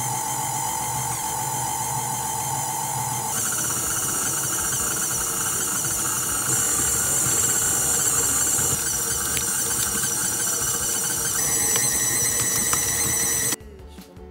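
Electric stand mixer running, its motor whining steadily as it kneads dough. The whine shifts higher about three seconds in, and the sound cuts off suddenly near the end.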